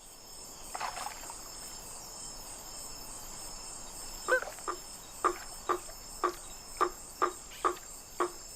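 Male blacksmith tree frog calling: short single calls repeated evenly about twice a second, starting about four seconds in, over a steady high-pitched night chorus. This is the advertisement call a male gives beside his finished nest to attract females.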